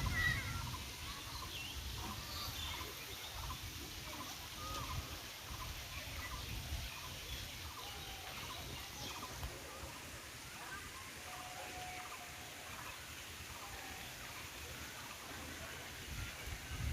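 Birds calling outdoors in short, scattered chirps, over a steady low rumble.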